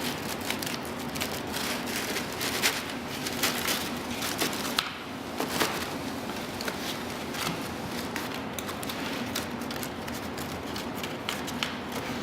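Sandpaper strips being worked by hand into the slots of a sanding-head casting: irregular light clicks, taps and paper crackle over a steady background hiss.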